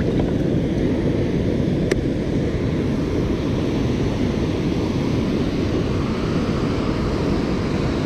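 Steady rush of river water pouring over a low-head dam and churning below it, with one brief click about two seconds in.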